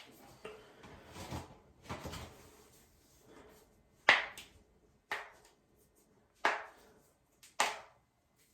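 Foot and leg joints cracking: four sharp pops about a second apart in the second half, the first the loudest, after some softer, longer noises.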